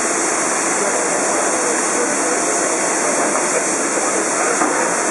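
Steam hissing steadily and loudly from the standing DR Class 65.10 steam tank locomotive: an even, unbroken rush of escaping steam.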